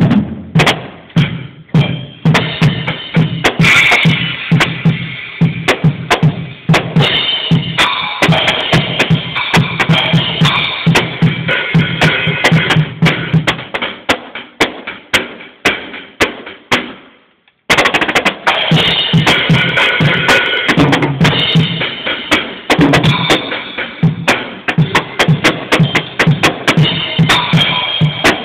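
Drum kit played hard: a dense, fast stream of bass drum, snare and cymbal strikes. It stops briefly about two-thirds of the way through, then starts up again.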